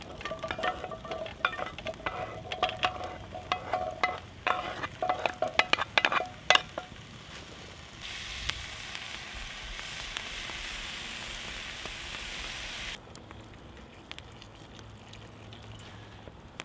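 Metal tongs clinking and tapping against a cast-iron Dutch oven as chopped vegetables are dropped in: a quick run of knocks with ringing taps for the first six seconds or so. Then a steady sizzle of food frying in the hot pot, which cuts off suddenly about five seconds later.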